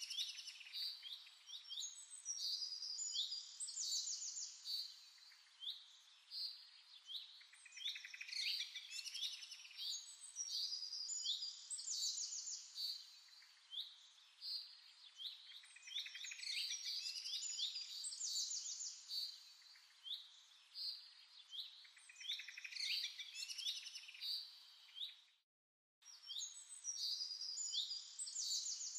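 Small birds chirping and twittering in quick high-pitched trills, coming in clusters every few seconds, with a brief cut-out to silence about 25 seconds in.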